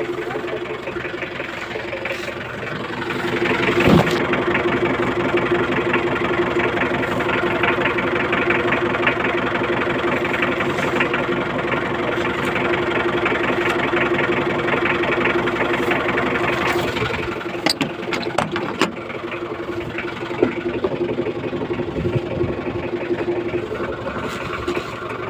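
An engine running steadily at a constant pitch, with a sharp knock about four seconds in.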